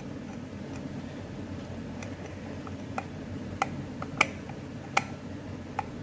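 Scattered light clicks and taps, about eight of them at irregular intervals, from the stainless-steel mixer jar and its base parts being handled while a rubber washer is fitted onto a socket screw. Underneath is a steady low background noise.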